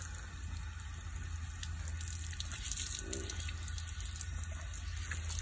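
Water pouring and splashing steadily as a man washes dust off his face.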